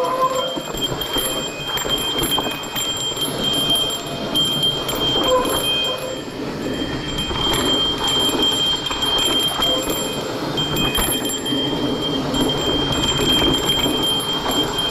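Mountain bike rolling down a dirt singletrack: a steady rush of tyre and wind noise with rattling and ticking from the bike. A thin high ringing tone comes and goes over it.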